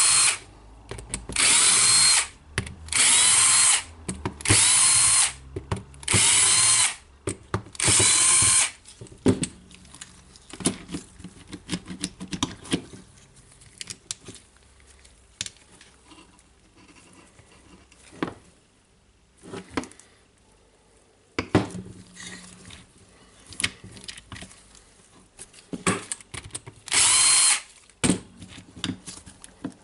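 Cordless drill-driver running in about six short bursts, each rising in pitch and dropping back, as it backs screws out of an impact driver's plastic housing. Then come light clicks and handling of the tool, and one more short burst near the end.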